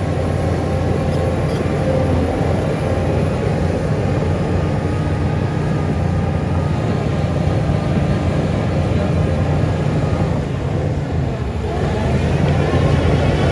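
Heavy construction machine's diesel engine running steadily under load. It eases off briefly near the end, then picks up again, a little louder.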